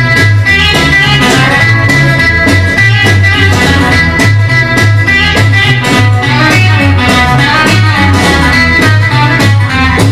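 Instrumental break in a rock and roll song: a guitar lead over a driving bass line and steady drum beat.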